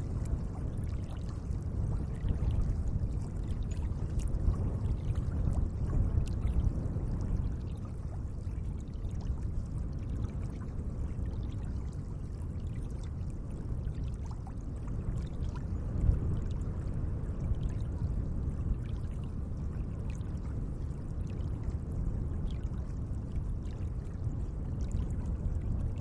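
Gentle lake water lapping and trickling steadily, a low continuous wash with small splashes.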